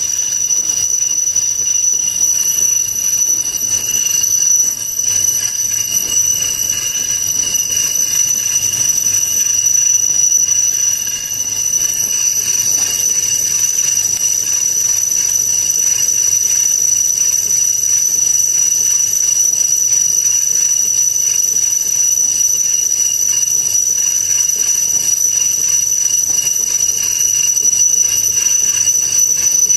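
Industrial metalworking machinery running steadily with a continuous high-pitched metallic squeal, one strong steady tone over a rushing noise.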